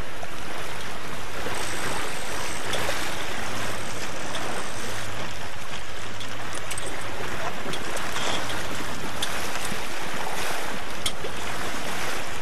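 Wind buffeting the microphone and water rushing past the hull of a sailboat under sail, a steady noise with a few faint clicks.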